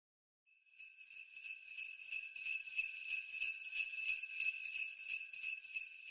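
Sleigh bells jingling in a steady shake, starting just under a second in and fading away near the end.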